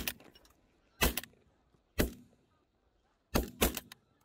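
Shotgun volley at a flock of geese overhead: about five loud shots spread over four seconds, the last two close together, with fainter pops in between and a short echo after each.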